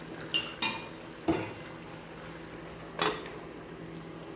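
Metal cookware clinking as a frying pan of simmering chicken adobo is covered: four sharp clinks with a short ring, from an aluminium lid and utensil knocking against the pan, over a low steady hum.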